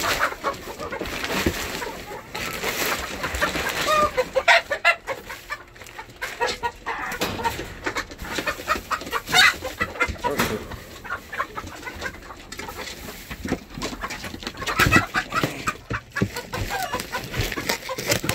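Chickens clucking on and off, over rustling and knocking as bags of pine shavings are handled and the shavings spread on the coop floor.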